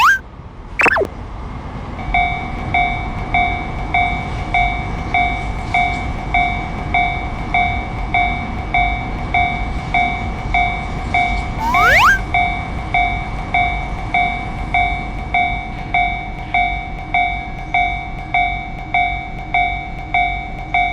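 Japanese level-crossing warning bell ringing its 'kan-kan' alarm, a pulsing two-tone clang about twice a second that starts about two seconds in, over the low rumble of a passing train. Short rising whistle-like sound effects with a burst of noise come at the start, midway and at the end.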